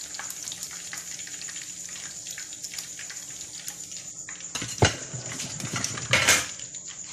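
Hot oil sizzling and crackling in a frying pan as deep-fried chicken wings are lifted out with tongs. A sharp knock comes about five seconds in, and a short, louder clatter follows about a second and a half later.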